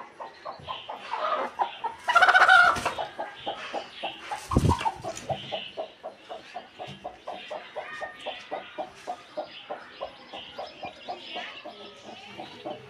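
Broody hen clucking in a rapid, even series, about five clucks a second. There is a louder call about two seconds in and a low thump about four and a half seconds in.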